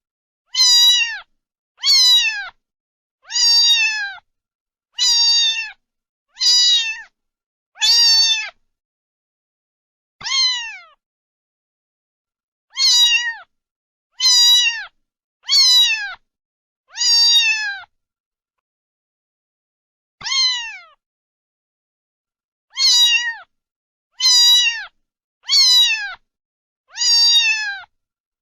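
A cat meowing over and over, about sixteen short meows, each under a second and falling in pitch at its end, with two longer pauses between groups.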